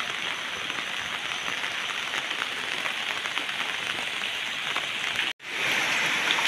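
Heavy rain falling, a steady hiss. The sound breaks off for an instant about five seconds in and comes back slightly louder.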